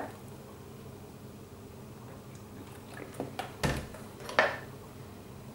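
Quiet room tone with a few light clicks a little after three seconds in, then a sharper knock and a ringing clink about a second later: a spoon and a plastic protein shaker bottle being handled and put down on a table.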